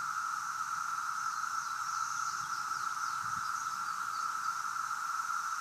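Chorus of 17-year periodical cicadas calling, a steady high-pitched drone that does not let up.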